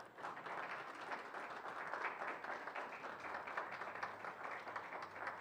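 Light applause from a small audience, many hands clapping at once, dying away near the end.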